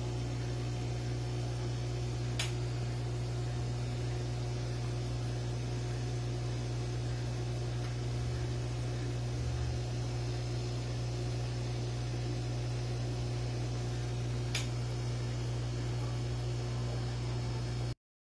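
Steady low mechanical hum with a light hiss, like a small motor or pump running, with two faint clicks, one about two seconds in and one about fourteen seconds in. The hum cuts off suddenly near the end.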